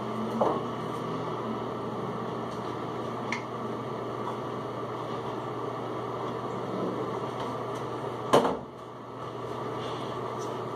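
A steady mechanical hum and hiss, like a room fan running, with a single sharp knock about eight seconds in.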